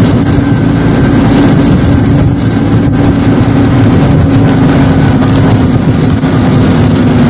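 Jeep engine running steadily under way on a rough dirt track, heard from inside the open vehicle: a constant drone over a rough rumble of the road.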